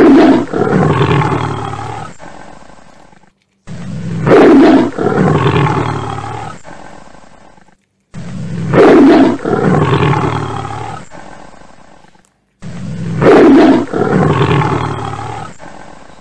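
A loud, deep animal roar that repeats four times, about every four and a half seconds. Each one starts suddenly and fades out over a few seconds. The repeats are identical, so this is a single roar clip looped and laid over the picture of cats eating.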